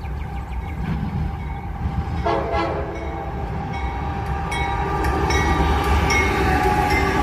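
Approaching CSX freight train with diesel locomotives rumbling as it passes close by. The locomotive horn starts sounding about two seconds in and holds a steady chord.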